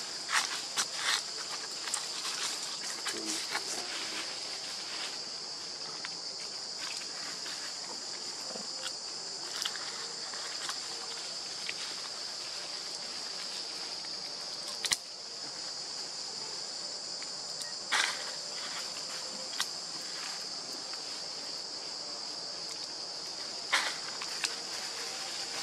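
Steady high-pitched chorus of insects buzzing without a break, with a few brief rustles and sharp clicks scattered through it, the loudest about halfway through and near the end.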